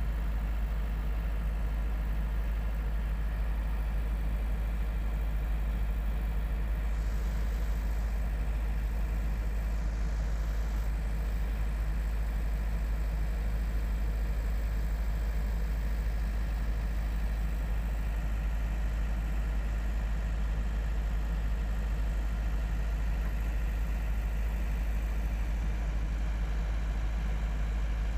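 Tugboat's diesel engine running steadily with a deep, even drone, heard from the tug's own deck as it works under load, towing a container ship off the berth on a line.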